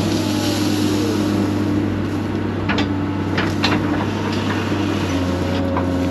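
Excavator's diesel engine running steadily under load with the whine of its hydraulics, as it digs out small pine stumps and roots. A few sharp knocks come near the middle.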